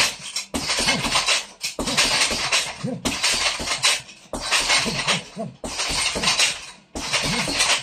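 A hanging heavy punching bag being hit in a steady run of blows, about one burst a second, each with a rattle from the bag's hanging chain and a short grunt from the boxer.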